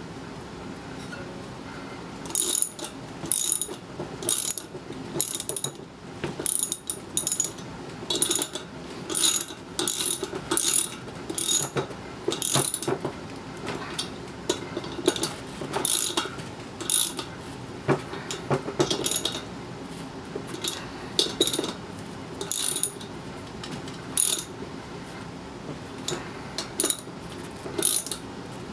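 Socket ratchet wrench clicking in short runs as bolts on a motorcycle wheel hub are turned. The clicking starts about two seconds in and comes back roughly once a second, with a few short pauses.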